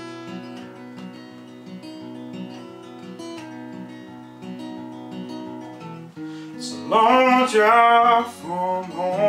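Takamine acoustic-electric guitar fingerpicked in a steady repeating pattern as a song intro. A man's singing voice comes in about seven seconds in, louder than the guitar.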